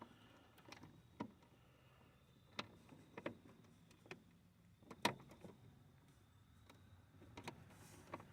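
Faint, scattered clicks and taps of wire ring terminals and terminal hardware being handled and fitted onto a battery post by hand, about eight light knocks at uneven intervals, one about five seconds in a little louder than the rest.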